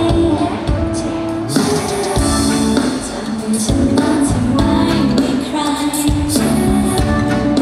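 Live pop music: a group of women singing into microphones over a band with drums and electric guitars.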